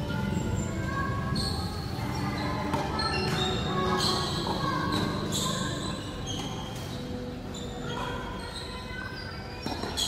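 Tennis rally on an indoor hard court: ball strikes and bounces echoing in a large hall, with scattered short, high squeaks.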